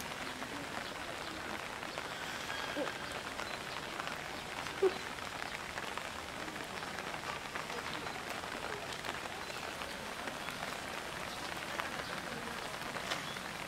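Steady heavy rain falling on the pool and rocks. One brief, louder short sound comes about five seconds in.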